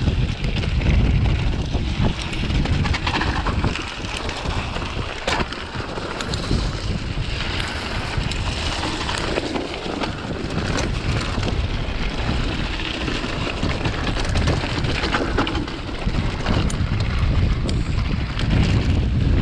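Wind buffeting the microphone of a camera on a mountain bike riding down a rocky dirt trail, a steady low rumble. Tyres run over stones and the bike rattles, with scattered sharp clicks.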